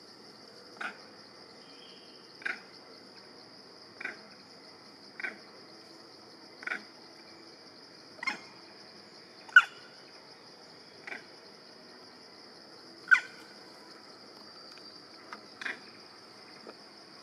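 An animal giving about a dozen short calls, roughly one every second and a half, two of them much louder than the rest, over a steady high insect drone.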